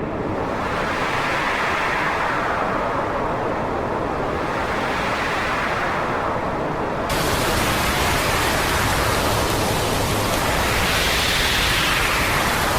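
Hurricane wind and rain: a steady rushing noise that swells and fades in gusts, then switches abruptly about seven seconds in to a harsher, fuller hiss.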